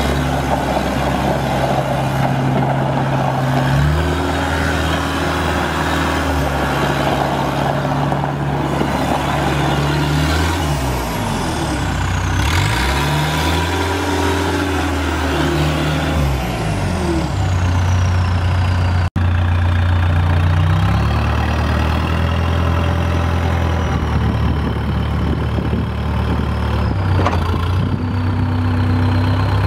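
Cat 246B skid steer's diesel engine running, its speed rising and falling several times, with a thin high whine gliding in pitch above it. The sound cuts out for an instant about two-thirds of the way through.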